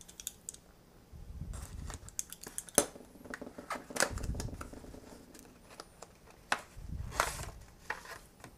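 Small cardboard retail box being opened and handled: scattered clicks, scrapes and rustles of cardboard as the end flap is pried up, then the plastic tray inside is slid out.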